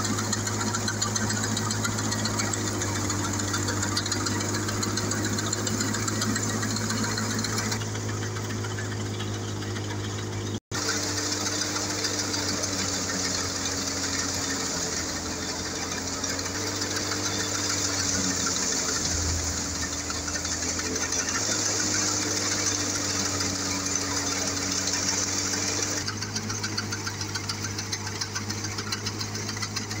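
Tractor-driven wheat thresher running steadily: the tractor engine's drone under the whirring hum and rattle of the threshing drum. The hum wavers a little in pitch. The sound cuts out for an instant about ten seconds in.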